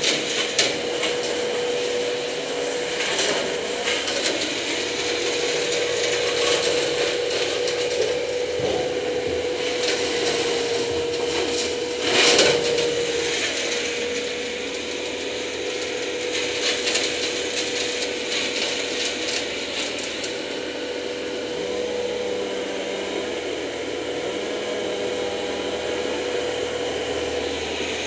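A machine running steadily with a constant hum, under rustling and rubbing handling noise, with a brief louder burst about twelve seconds in.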